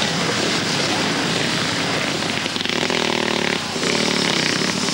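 Several enduro motorcycle engines running hard as their riders try to drive out of deep mud, the rear wheels digging in. About halfway through, one engine holds a steady high note for roughly a second.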